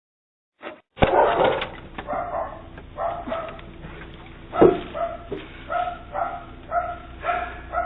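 A dog barking repeatedly through a video doorbell's microphone. The barking starts about a second in and settles into a steady run of about two barks a second near the end.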